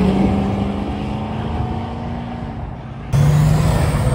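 Engine of an old Ford pickup truck pulling away at a steady pitch and fading as it drives off. About three seconds in, an abrupt cut to the louder, lower-pitched engine of a 1980s Buick Regal rolling past.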